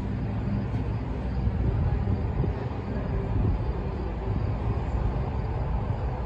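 Farm truck with a high-sided forage box driving slowly across a mown field, its engine running steadily with a low-pitched hum.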